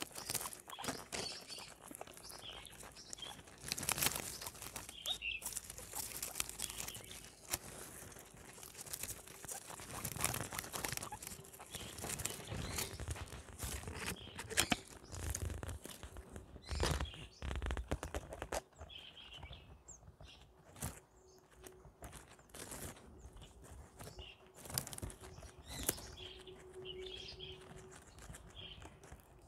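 Guinea pigs chewing and crunching on fresh greens and flowers: a run of crisp crackles and snaps, with a few short high chirps in between.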